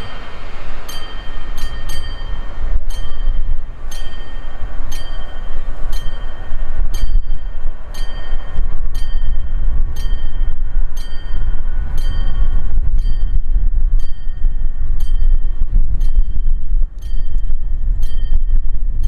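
A train at the halt: a deep rumble with sharp metallic dings about twice a second, each leaving a brief ringing tone.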